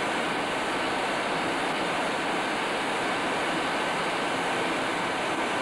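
Cockpit noise inside a Tornado GR1 jet: a loud, steady rush of engine and airflow noise with a thin, steady high whine over it.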